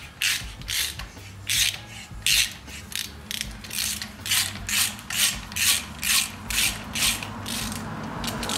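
Thread tap turned by hand with a tap wrench in a head stud hole of a Subaru EJ257 engine case, cutting new threads for a Time-Sert insert: a quick run of short rasping, ratchet-like clicks, about three a second. The tap is worked back and forth to break off and clear the shavings.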